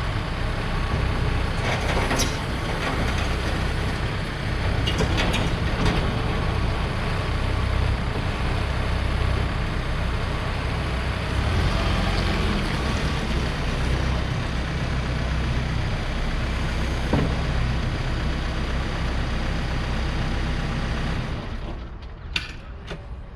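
Diesel engine of a Case 590 Super N backhoe loader running steadily while the loader and backhoe hydraulics are worked, with a few clunks. About 21 seconds in, the sound falls away sharply and a couple of clicks follow.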